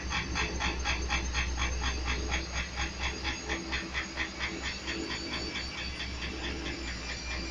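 Ardo washing machine running, its drum turning with an even rhythmic swishing pulse about four times a second that slows a little, over the motor's steady low hum.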